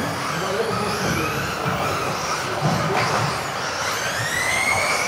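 Several electric RC off-road cars racing together, their motors whining and sliding up and down in pitch as they accelerate and brake, with one clear rising whine near the end.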